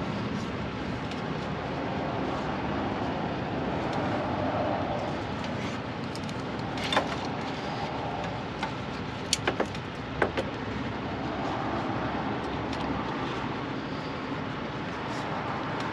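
Steady background rumble with a few sharp metallic clicks and clanks: a wrench and its long handle knocking on the truck's coolant filter as it is worked to break the filter loose. One click comes about halfway through, then a quick cluster of three and two more a moment later.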